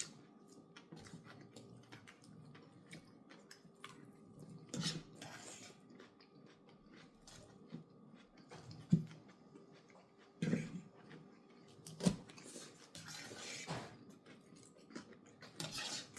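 People eating salad and chicken: chewing and crunching, with scattered short clicks and rustles from food and containers.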